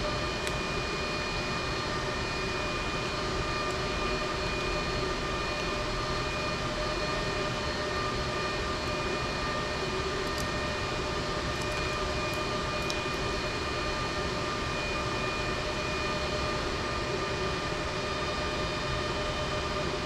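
A steady machine hum with several constant whining tones under it, unchanging throughout. A few faint light clicks about halfway through.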